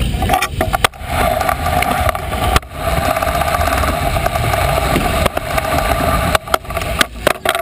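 Kick scooter wheels rolling fast over plywood skatepark ramps: a loud, steady rumble with a hum. It dips briefly about a second in and again near three seconds, and a few sharp knocks come near the end.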